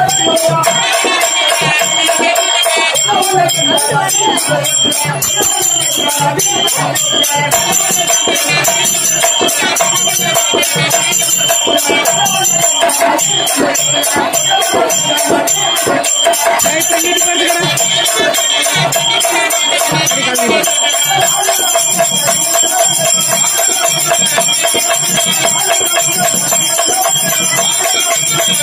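Therukoothu folk-theatre accompaniment: drumming and a steady jingling rattle keep up a continuous beat under a sustained melody with a held drone note.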